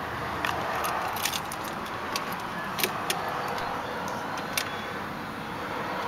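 2004 Mercedes-Benz S430's 4.3-litre V8 idling, heard from inside the cabin as a steady hum. About a dozen light clicks are scattered through it, bunched in the first second and a half.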